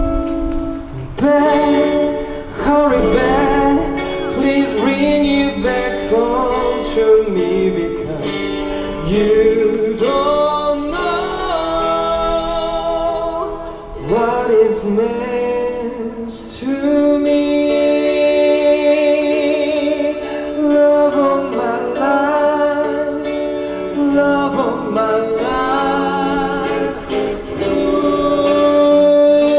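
A live band playing a song with a male voice singing the melody over guitars, amplified through a PA.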